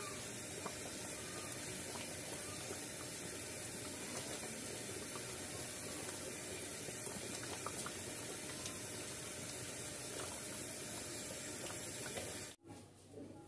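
A shallow pan of watery mixture boiling hard while a wooden spatula stirs it: a steady bubbling hiss with a few faint clicks. It cuts off suddenly near the end.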